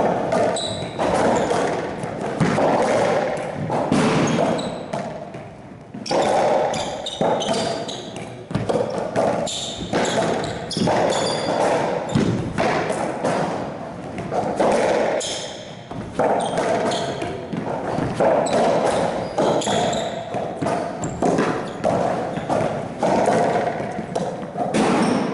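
Racquetball rally: the ball is struck by racquets and hits the walls again and again, each impact echoing in the enclosed court. Short high squeaks of sneakers on the court floor come in between.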